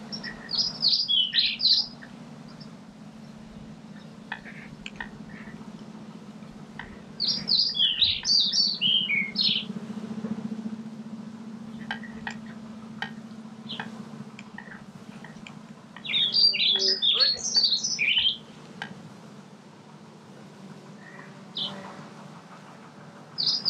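A songbird calling in bursts of rapid, varied chirps about two seconds long, repeating roughly every eight seconds over a steady low hum.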